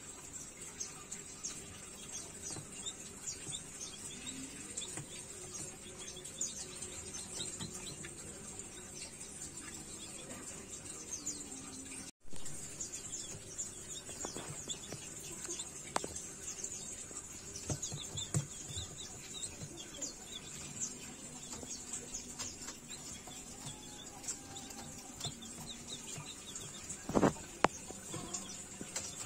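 Young hybrid green junglefowl × village chicken chicks peeping and chirping softly in a brooder, over a steady high hiss. A few light taps come midway, and one or two sharp, loud knocks come near the end.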